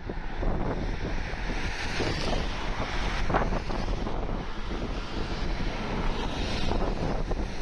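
Wind buffeting the microphone over the steady running noise of an approaching Siemens electric suburban train.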